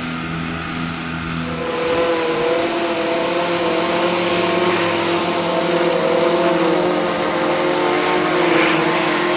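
Petrol lawnmower engine running. About a second and a half in it picks up to a faster speed, then keeps running steadily.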